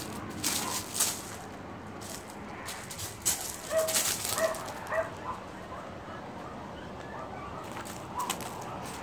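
A French bulldog moving about on loose gravel, with a series of short crunching, scuffing noises. About four seconds in come three short high-pitched calls in quick succession.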